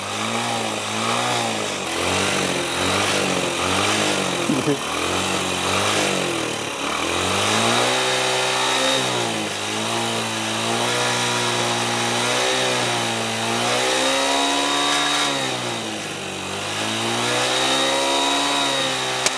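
Motorcycle engine running and being revved up and down while its exhaust inflates a balloon fitted over the silencer. For the first six seconds the revs rise and fall about once a second. After that come slower, longer swells every two to three seconds.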